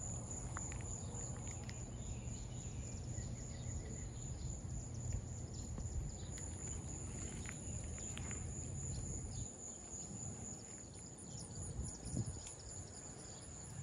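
Insects keep up a steady high-pitched drone, over a low rumble that drops away about two-thirds of the way through, with a faint bird trill early on.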